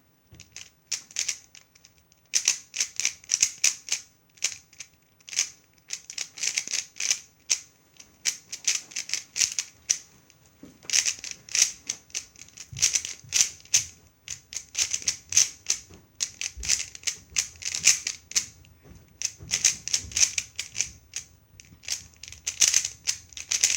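A 3x3 speedcube being turned rapidly by hand. The plastic layers clack in quick runs of clicks, broken by short pauses between sequences of moves.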